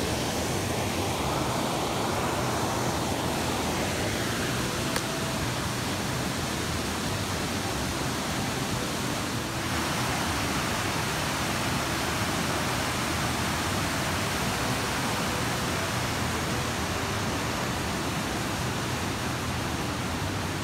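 Steady rush of river water over a weir and shallow stony rapids, with a fuller hiss from about halfway through.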